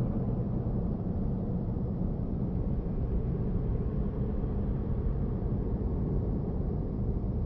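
A steady low rumble with no distinct sounds in it.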